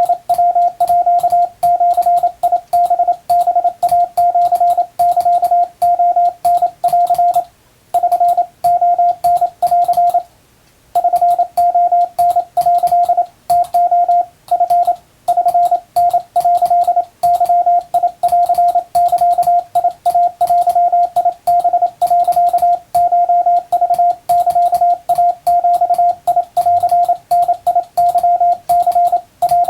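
Japanese wabun Morse code: a single steady mid-pitched tone keyed on and off in a fast, continuous run of dots and dashes, each element starting and stopping with a faint click. The run stops twice, briefly, about a quarter and a third of the way in.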